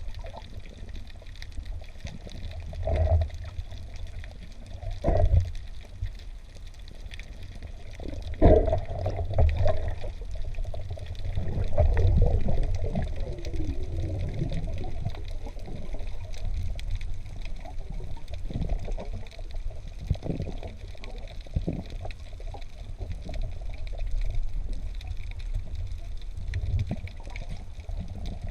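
Water sloshing and gurgling around a freediving spearfisher's camera, over a constant low rumble, with surges of noise every few seconds.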